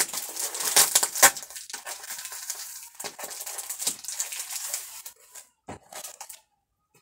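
A cardboard box being torn and opened by hand: continuous crackling and rustling of cardboard and packing, with a sharp snap about a second in, dying away near the end.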